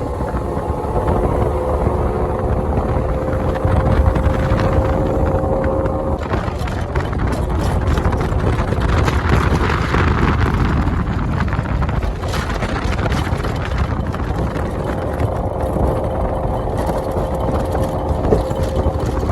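Motorboat running at speed: a steady engine drone with wind buffeting the microphone and repeated knocks and slaps from a bumpy ride over the water.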